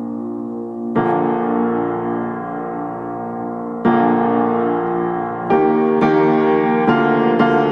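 Background piano music, slow chords changing every second or two.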